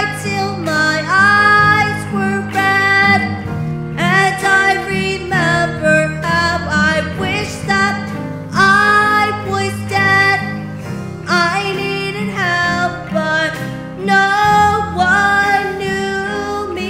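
A boy singing a solo song, holding and bending long notes, over instrumental accompaniment.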